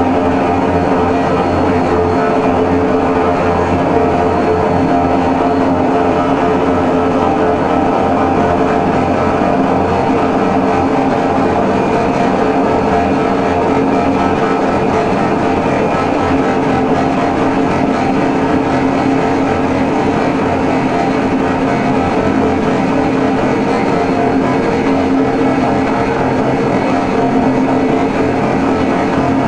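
Loud, steady drone noise music played live from a laptop: a dense wall of sustained tones over a low rumble.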